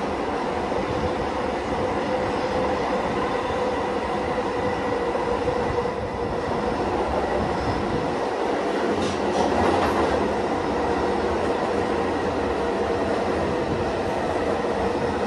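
Bombardier R143 subway car running along the track, heard from inside the car: a steady rumble of wheels on rail with a steady motor-and-HVAC hum. Several sharp clacks come in a louder patch about nine to ten seconds in.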